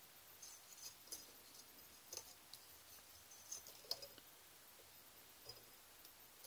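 Near silence, with a few faint scattered ticks and clicks of thin craft wire being threaded and coiled by hand around a wire frame.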